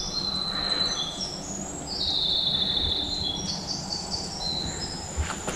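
Songbirds singing: a string of short high notes at changing pitches, with a longer trill about two seconds in.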